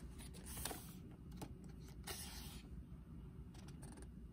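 Faint rustling of a photobook's paper pages as hands slide over and smooth the open spread, in short brushes with a few soft ticks.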